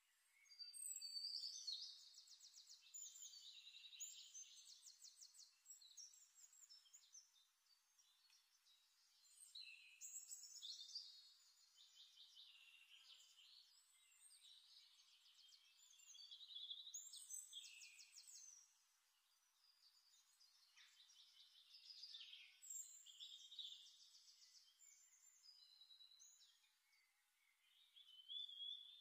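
Faint birdsong: a small songbird singing long phrases of fast trills and warbles, high-pitched, in bouts of a few seconds with short pauses between them.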